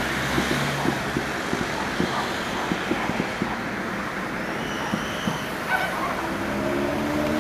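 Distant fireworks popping and banging irregularly over steady outdoor background noise, with a few brief pitched sounds in the second half.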